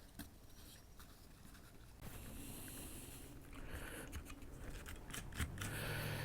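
Faint clicks and light scraping of plastic parts and wires being pressed back into the drill's plastic housing by hand. A low steady hum comes in near the end.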